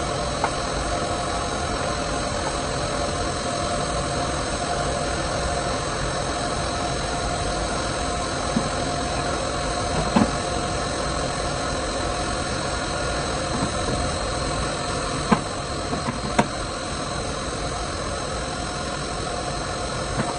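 Steady hum and whine of machinery running, with a few sharp knocks about halfway through and twice more later.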